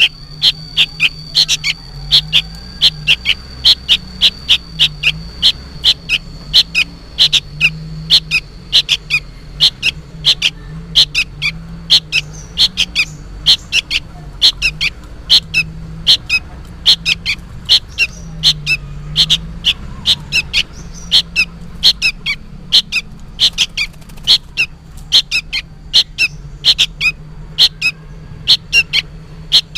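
Fledgling sooty-headed bulbul (kutilang) giving short, sharp calls that drop in pitch, about two to three a second without letup. The uploader takes this noisy calling for the young bird calling its parent.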